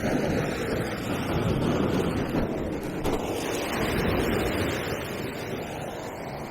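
Surf breaking and washing over shoreline rocks, swelling for a few seconds and then easing off, with wind buffeting the microphone.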